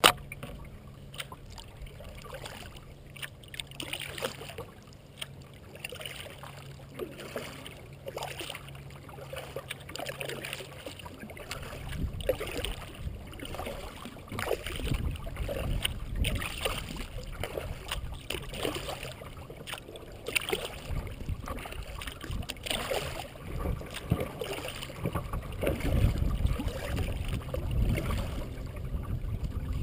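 Kayak being paddled: repeated paddle splashes and water lapping against the hull, picked up by a camera on the bow deck. A low rumble comes in from about twelve seconds in and grows toward the end.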